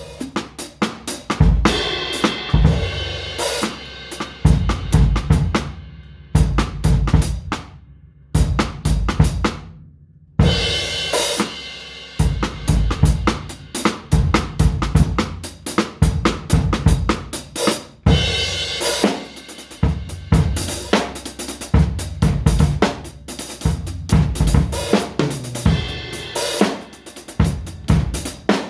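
Drum kit played freely, with dense, irregular hits on the drums and cymbals. The playing breaks off for about a second a third of the way in, then picks up again.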